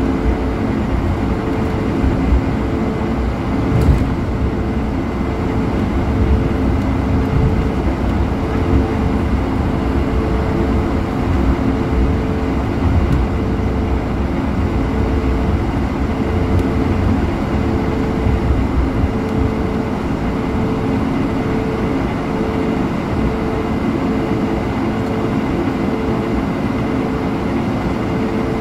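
Cabin noise of a Swiss Airbus A220-100 taxiing: the steady hum of its Pratt & Whitney PW1500G geared turbofans at low thrust over a low, uneven rumble from the wheels on the pavement. A steady mid-pitched tone runs through it, with a second, higher tone that pulses on and off evenly.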